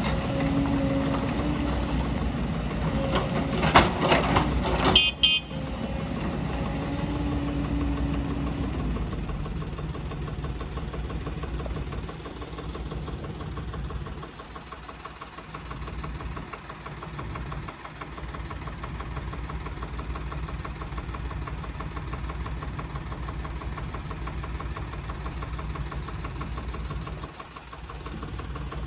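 JCB tracked excavator's diesel engine running as it works its hydraulics digging and loading stones, with a steady tone over the first several seconds. Loud clanks of the bucket striking rock come about four and five seconds in. After that the engine runs on more quietly.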